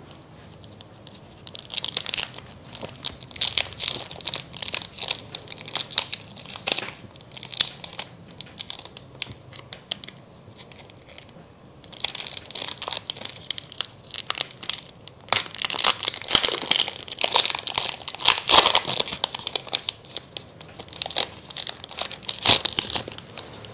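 Pokémon booster pack wrapper being torn open by hand and crinkled, in two long spells of crackling with a quieter pause of several seconds between.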